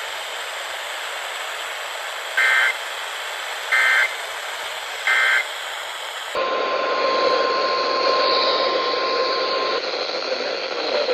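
Weather radio broadcast over a steady hiss: three short, loud two-pitch data bursts about a second and a half apart, the EAS end-of-message code closing a severe thunderstorm warning. About six seconds in the hiss changes and a steady single-pitch weather radio alert tone sounds for about three seconds, signalling the start of the next warning.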